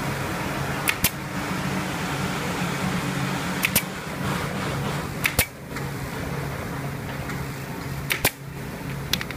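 Pneumatic upholstery staple gun firing staples through sofa fabric: sharp double shots, five times at intervals of two to three seconds, over a steady low hum.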